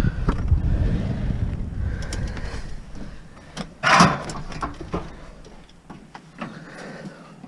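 A car's rear hatch is opened and scrap metal in the cargo area is shifted by hand, with a low rumbling handling noise at first and one loud metal clatter about four seconds in, followed by a few lighter knocks.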